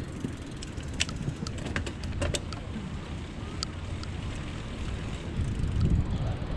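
Riding a bicycle: wind rumbling on a chest-mounted camera's microphone, with scattered sharp clicks and rattles, the rumble swelling briefly near the end.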